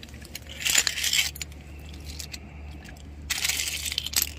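Loose seashells crunching and clinking, with two longer crackly crunches about two and a half seconds apart and small sharp clicks between them.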